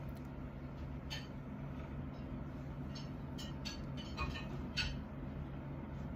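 Small clicks and ticks from handling a liquid lipstick tube, its applicator wand and a compact mirror: about half a dozen, mostly in the middle. They sit over a steady low hum.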